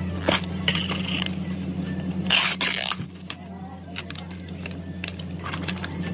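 Plastic cup of ice being unsealed: the lid film crinkles and tears, loudest about two and a half seconds in, followed by light clicks and taps of ice and pieces dropped into the plastic cup, over a steady low hum.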